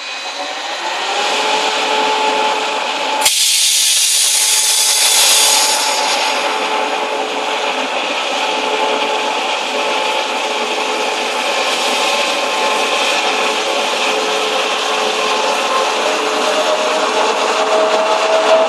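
An electric multiple-unit commuter train pulling into the station. Its wheels and brakes give a steady squeal over a grinding rumble that grows louder as it nears, and a tone rises near the end. About three seconds in, a sharp click is followed by a loud hiss of air lasting a couple of seconds.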